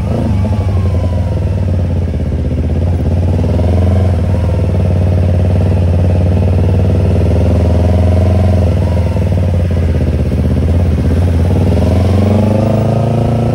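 Yamaha YZF-R25's parallel-twin engine running steadily through a Tiger aftermarket exhaust. The engine note rises a little about two seconds in, sags past the middle, and climbs again near the end as the throttle changes.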